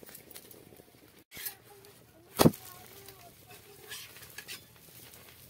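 Metal spatula scraping and tapping against an iron tawa while an omelette is turned over a wood fire, with small scattered clicks and one sharp, loud clank about two and a half seconds in.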